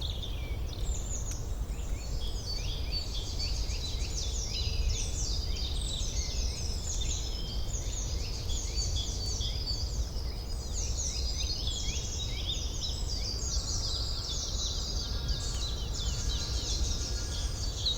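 Forest ambience: a dense chorus of many small birds chirping and twittering in quick, downward-sweeping notes, over a steady low rumble.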